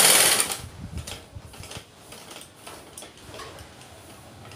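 Sewing machine stitching a design piece onto a sleeve, stopping about half a second in; after that only light scattered ticks and clicks.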